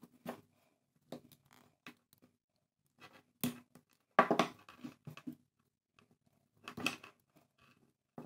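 Diagonal cutters at work on a coiled telephone handset cord, cutting and stripping it: scattered sharp clicks and handling rustles, loudest a little after four seconds in and again near seven seconds.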